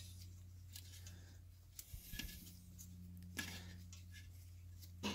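Faint clicks and rubbing from an oxygen sensor and its wiring being twisted by hand, a few scattered clicks over a steady low hum.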